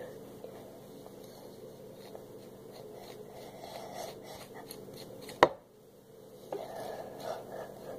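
Soft scraping and rubbing of a hairbrush and hands working through long wet hair, with one sharp knock about five and a half seconds in.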